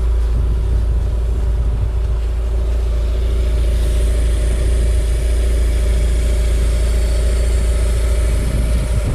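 Lada XRAY's 1.6-litre 16-valve inline-four petrol engine idling steadily, heard from under the car.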